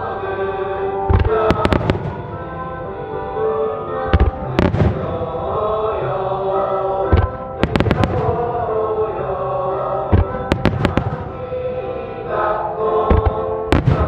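Aerial fireworks shells and comets bursting over music: sharp bangs come in clusters about every three seconds, over music with long held tones.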